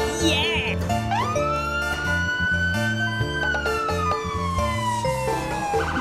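A siren wailing once over upbeat background music, rising slowly in pitch and then falling, with a short warble at the start.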